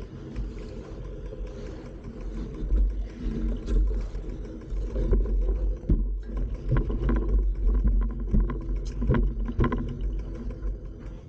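Low, steady rumble of wind and trail vibration on a handlebar-mounted camera as a B'Twin Riverside 900 hybrid bike rolls over a bumpy sandy dirt trail, with frequent short knocks and rattles from the bike. Near the end, a hand grabbing the camera adds a few knocks.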